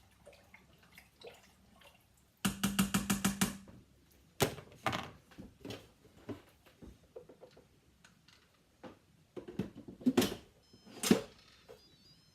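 Cookware being handled: a quick rattle of about ten clicks, then a few separate sharp knocks, as of a spoon or lid against a pot.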